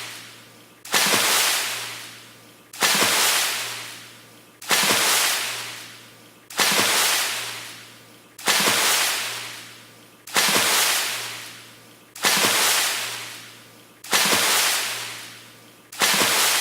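A fast water splash repeating about every two seconds, nine times: each one starts suddenly with a hissing spray and fades away over about a second and a half.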